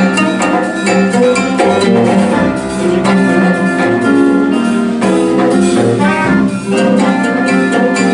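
Live jazz band playing together: keyboard, horn and guitars over a steady rhythm with drums.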